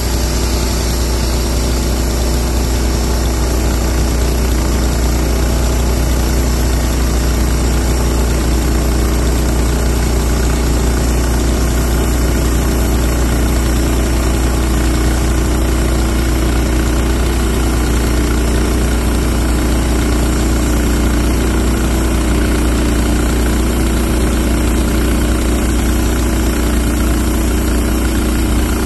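Wood-Mizer portable sawmill's engine running steadily at an even, unchanging pitch and level.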